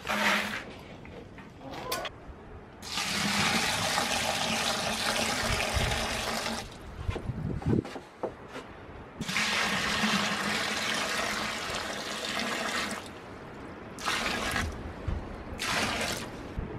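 Water pouring from a jug into plastic buckets of barley seed to cover it for soaking: two long pours and two shorter ones near the end, with short breaks between.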